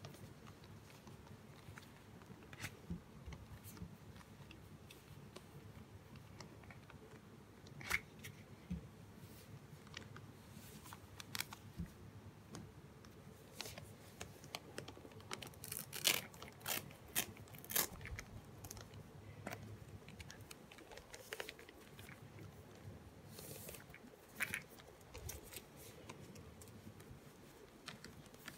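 Faint handling noises of a doll being undressed and dressed: fabric rustling and scattered short crackles and rasps as clothes are pulled over the doll, busiest about sixteen to eighteen seconds in.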